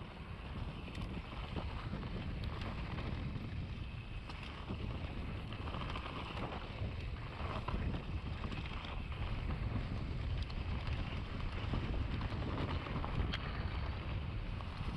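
A mountain bike riding down a rough dirt trail: wind buffeting the microphone over a steady rumble of tyres and a rattling bike, with scattered sharp clicks.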